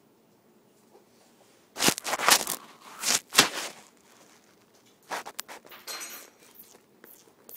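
A baby making short, noisy, hissing sounds: two loud bursts about two and three seconds in, then a run of softer ones near the end.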